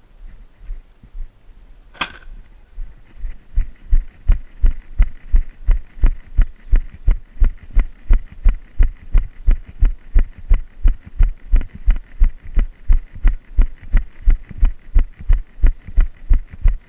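A runner's footfalls on a trail: heavy, even thumps at nearly three a second, starting about three and a half seconds in. A single sharp click comes about two seconds in.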